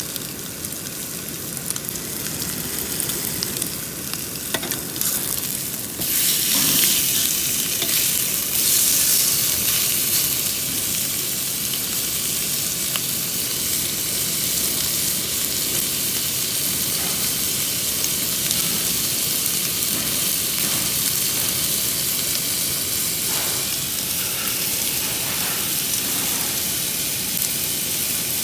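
Pork ribs sizzling and frying on a tabletop barbecue grill, a steady crackling hiss that gets louder about six seconds in.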